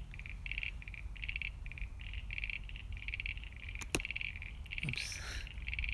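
Frogs calling: a steady run of short, rattling, pulsed notes repeating about two or three times a second. A single sharp click sounds about four seconds in.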